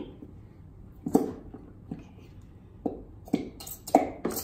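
Plastic glue bottles squeezed into glass bowls, sputtering and squirting in short bursts, about six times as air and glue spurt out.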